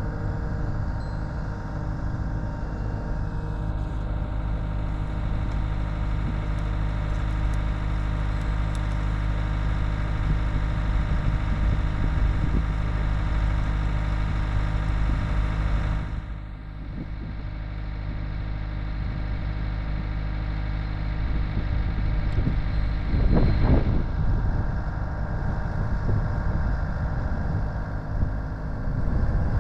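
Engine of the machine carrying a post pounder running steadily while a fence post is pulled and reset. Its sound drops suddenly about 16 seconds in, then builds again, with a brief clatter around 23 seconds.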